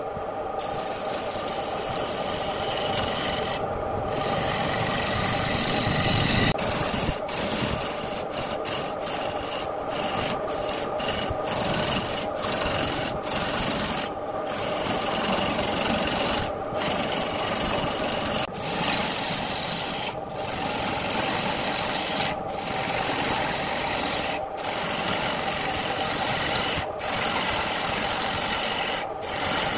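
A hand-held gouge cutting into a wooden blank spinning on a wood lathe: a continuous rasping cut with shavings flying off, over the lathe's steady hum, broken by many brief breaks.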